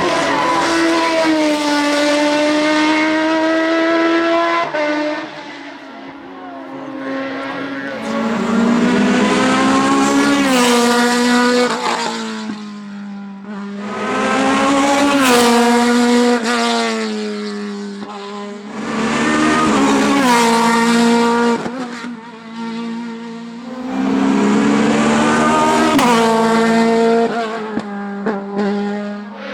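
Hill-climb race car engines at full throttle, the pitch climbing through the revs and dropping back again and again. There are about five loud surges, with quieter stretches between them.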